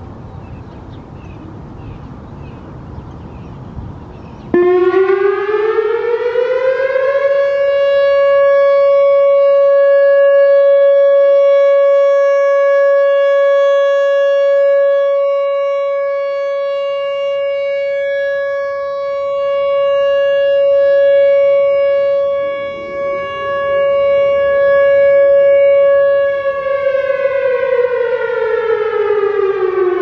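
Whelen WPS-3000 electronic siren on an ESC-2030 board starting suddenly about four seconds in. Its tone slides up and settles into a steady 560 Hz alert tone, rising and falling in loudness as the speaker array rotates. Near the end the pitch slides back down as it winds off.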